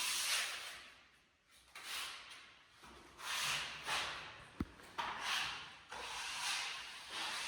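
Parquet wood floor being sanded by hand in back-and-forth strokes, each stroke a hissing swell of rubbing, about one every second or so. A brief knock sounds about four and a half seconds in.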